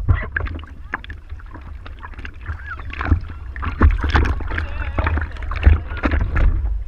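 Water sloshing and slapping against a surfboard right at a board-mounted action camera, with a steady low rumble and frequent short knocks and splashes.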